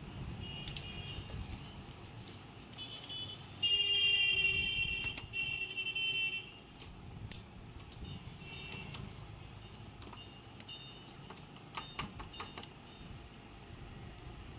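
Circlip pliers and a screwdriver clicking and scraping against an AC compressor's clutch pulley as the snap ring is worked into its groove, with a run of small metallic clicks near the end. A loud high-pitched tone sounds for about three seconds, a few seconds in.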